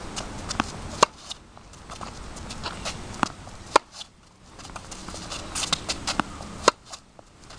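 Tennis racket striking the ball three times, about three seconds apart, with softer ball bounces and footsteps on the hard court between the shots.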